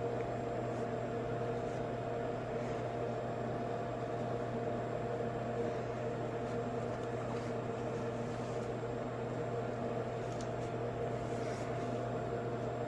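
Steady electric hum of an idling fan or motor, several fixed tones over a light hiss, with a few faint rustles and ticks as fabric is smoothed by hand.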